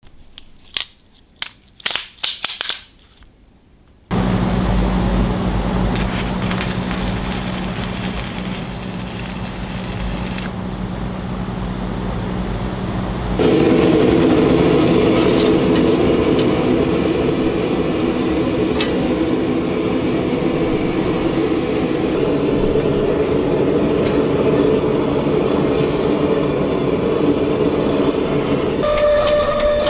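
A few metal clinks from a stack of steel bars, then a steady hum with a stretch of crackling hiss. From about thirteen seconds in, a gas forge burner runs steadily as the damascus billet heats. A steady tone joins in near the end.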